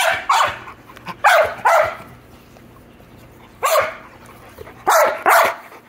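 A dog barking loudly, seven barks, mostly in quick pairs with pauses between.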